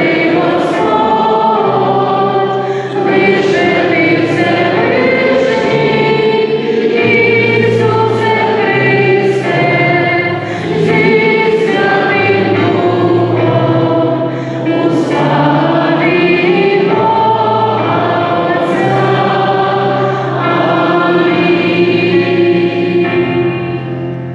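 Church choir singing a hymn in several voices, with long held notes over a steady low accompaniment that moves from note to note; the singing fades out at the very end.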